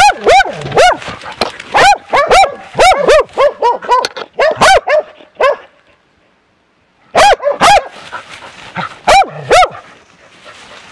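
Hunting dog baying at a bear: a rapid run of loud, short barks, a pause of about a second and a half, then a few more barks before it goes quieter near the end.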